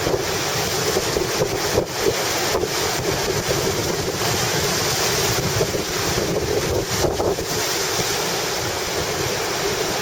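Strong gusty wind, over 10 m/s, buffeting the microphone over the continuous wash of choppy surf breaking on a beach.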